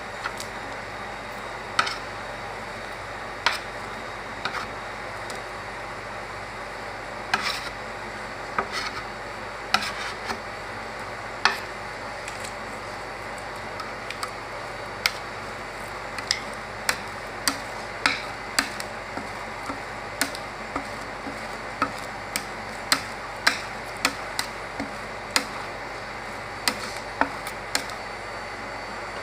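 Metal spatulas chopping and tapping on the frozen steel plate of an ice cream roll machine as the mix is worked: sharp clicks about once a second, coming faster in the second half, over a steady hum.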